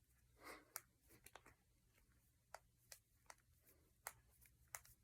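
Faint, sharp pops of finger knuckles cracking, about eight of them at uneven intervals.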